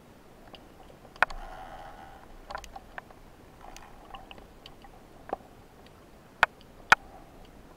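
Underwater sound on a camera carried by a diver: a low hiss with scattered sharp clicks and snaps, and a short bubbling rush about a second in. Two loud snaps about half a second apart come near the end.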